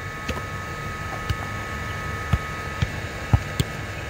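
A football kicked and touched on grass: short dull thuds at irregular intervals, roughly one to two a second, over a steady background hum.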